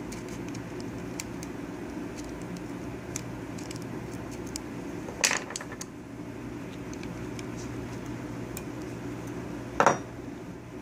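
Small metal clicks and taps of a screwdriver prying a C-clip off the shaft of a Nippon Seiki motorcycle odometer, with two louder clinks, about five seconds in and near the end, over a steady low hum.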